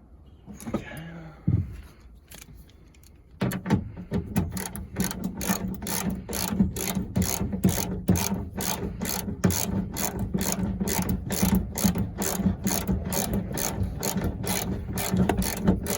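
Hand ratchet wrench being cranked, clicking steadily about three times a second from about three and a half seconds in. Before that, a few handling knocks.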